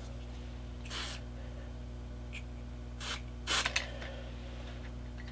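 Small handling noises at a hobby workbench: a few brief scrapes about a second and three seconds in, then a short clatter of small clicks from laser-cut wooden truss parts being moved on the board, over a steady low hum.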